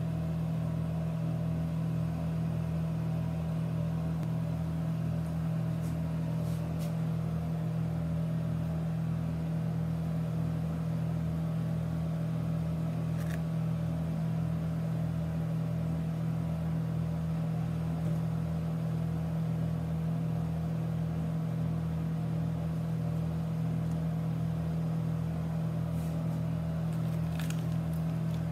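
A steady low machine hum with an even, rapid throb underneath, unchanging in level throughout.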